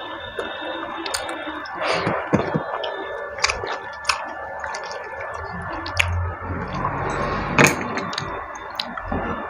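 Fingers squishing and mixing water-soaked rice (panta bhat) in a steel plate, with chewing and mouth sounds and scattered sharp clicks against the plate.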